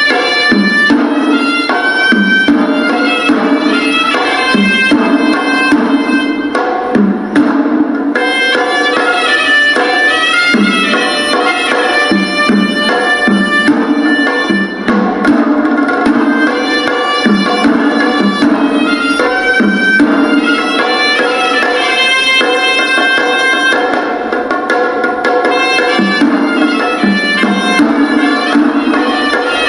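Hewisi ensemble: Sri Lankan temple drums beating a steady, repeated pattern under a horanewa, a nasal double-reed shawm, playing a winding melody.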